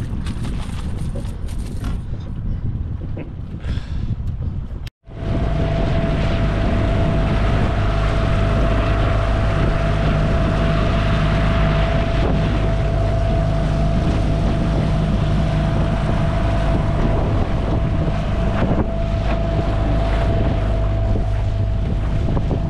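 Wind on the microphone and choppy water for the first few seconds. Then, after a sudden cut, an outboard motor runs steadily at speed, pushing the aluminum boat through the waves, with wind noise and the splash of the wake.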